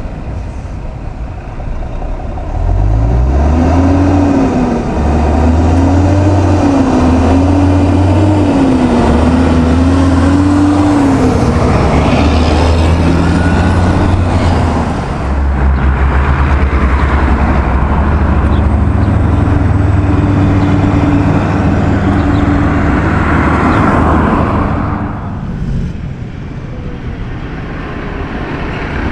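Diesel engines of Class 8 semi trucks running as the trucks drive past close by, loud through most of the stretch and dropping off near the end.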